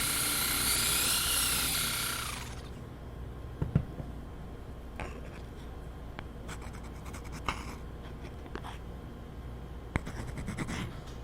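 A power tool runs with a loud, steady high whine and cuts off about two and a half seconds in. After it, there are scattered clicks and scraping strokes of hand work.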